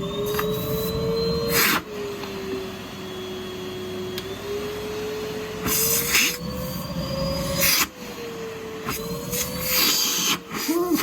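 Numatic NRV vacuum cleaner motor running with a whine that drifts slowly up and down in pitch, broken by a few short, loud rushes of noise.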